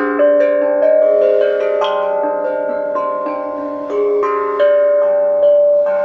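Steel tongue drum struck with mallets, a slow, unhurried melody of about two notes a second, each note ringing on under the next.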